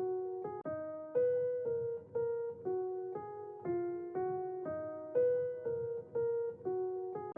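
Background music: a light electric-piano melody in a steady rhythm of about two notes a second.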